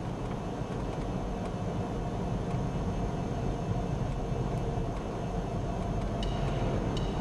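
Steady road and engine noise heard from inside a moving car. An oncoming articulated lorry passes close by near the end.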